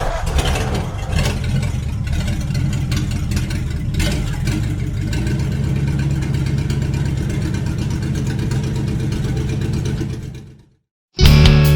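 Stock sound effect of an engine running steadily, fading out about ten and a half seconds in. Guitar music starts just before the end.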